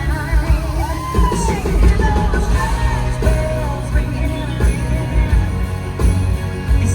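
Live concert performance of a country song: a full band over a steady drum beat, with a woman singing, heard from the audience.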